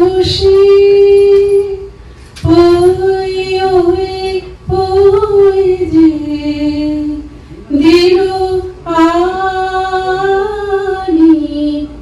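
A woman singing a slow song in long held notes, in several phrases of two to three seconds each with short breaths between them.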